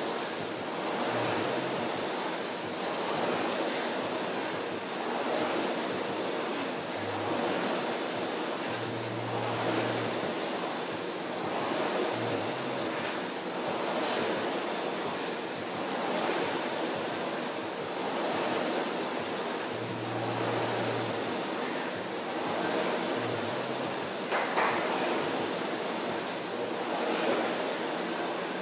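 Concept2 rowing machine's flywheel fan whooshing, swelling with each stroke about every two seconds at a steady rowing rhythm. A single short knock near the end.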